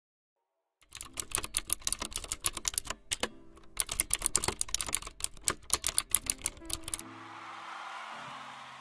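Rapid keyboard typing: dense, irregular clicking with a brief pause about three seconds in, stopping about seven seconds in. Soft background music with a hissy swell then fades in.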